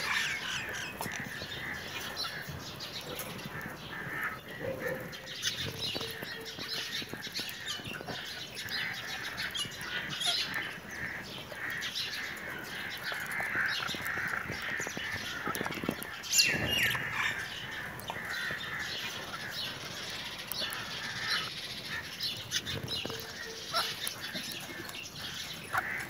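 Budgerigars chattering in a continuous twittering warble of quick chirps, with a louder call a little past the middle.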